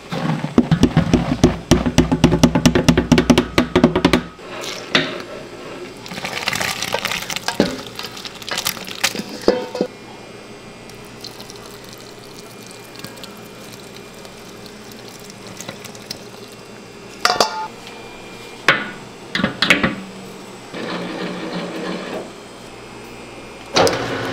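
Kitchen food-preparation sounds: a fast, dense clatter for the first four seconds, then scattered knocks and clinks of utensils and dishes over a steady low machine hum.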